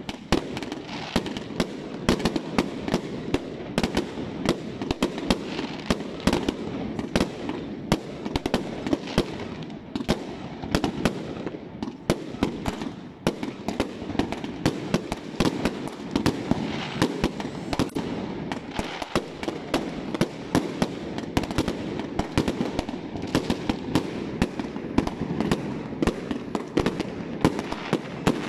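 Many fireworks going off at once: a dense, irregular barrage of sharp bangs, several a second, over a continuous din.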